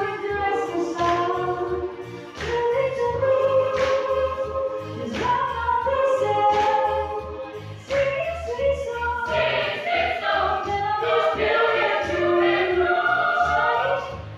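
A school choir of teenage students singing together, the sound dipping briefly about two seconds in and again about eight seconds in, between phrases.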